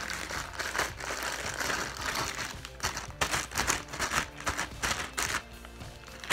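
Pink sand slime being squeezed and stretched by hand, giving quick crackles and sticky pops that come thickest in the second half, over background music.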